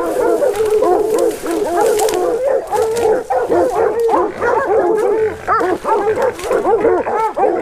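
Hog-hunting hounds barking and baying without a break, many calls overlapping, as they hold a wild hog at bay.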